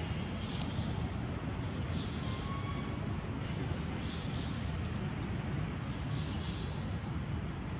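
Outdoor ambience: a steady low rumble with brief high chirps and clicks scattered through.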